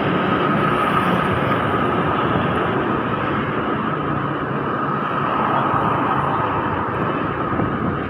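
Steady noise of a motor scooter being ridden along a road: engine and the rush of wind and road together, with trucks and cars alongside.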